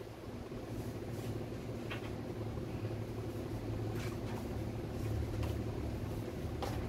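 Steady low fan hum, with a few faint clicks about a second, two seconds and four to five seconds in.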